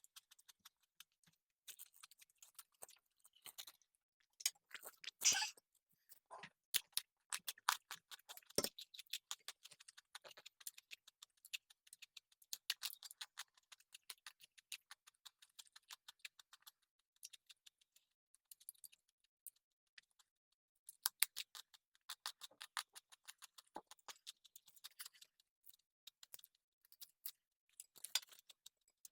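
Close-miked eating sounds: chewing with many small crisp clicks and crunches, irregular and several a second, with a few louder bursts.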